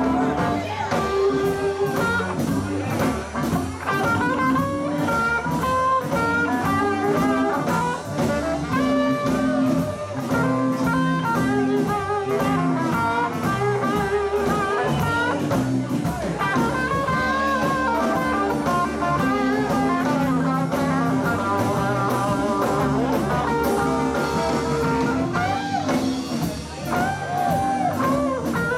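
Live blues band playing, with electric guitar, bass guitar, drum kit and keyboard.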